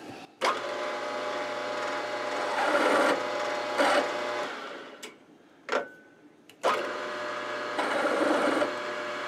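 Mill-drill spindle motor running a drill chuck, with a steady whine and hum. It starts with a click about half a second in, grows louder for a moment as the drill cuts, winds down after about four seconds, then starts again with a click about two seconds later and rises once more.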